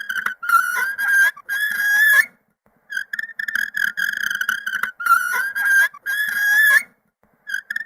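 Fingernails scraping across a chalkboard, a high-pitched screech. It comes in two rounds: a stretch of short chattering squeaks, then two longer screeches that rise slightly in pitch at their ends, then a brief pause before the next round.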